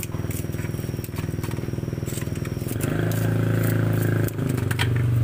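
Scissors snipping through fried batagor pieces into a bowl: a series of sharp snips. Under them a steady engine hum grows louder about three seconds in.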